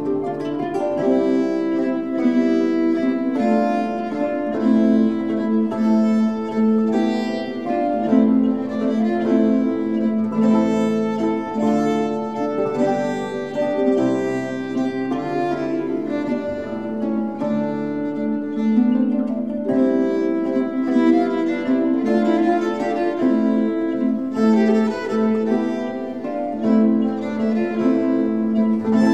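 Instrumental music for a fifteenth-century court dance: a bowed string melody over plucked strings.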